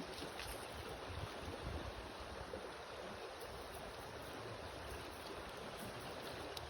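Steady running water, an even rushing and trickling with faint low rumbles beneath it.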